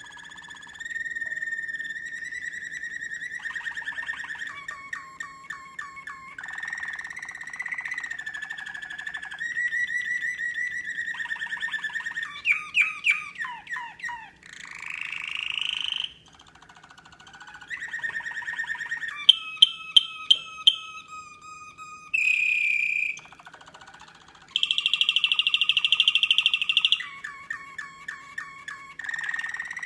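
American Singer canary singing a long, unbroken song made of shifting phrases: held whistled notes, rapid trills and fast rolls, and short rising glides, each lasting a second or two before the next begins. The song goes softer for a moment about halfway through.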